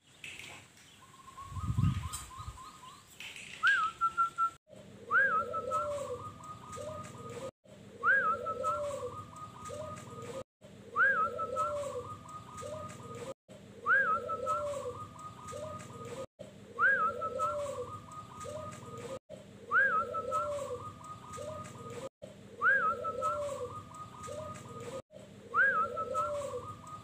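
Zebra dove (perkutut) singing its cooing song, the same phrase repeating about every three seconds: a short rising whistle, then a quick trill of soft coos. A brief low thump about two seconds in.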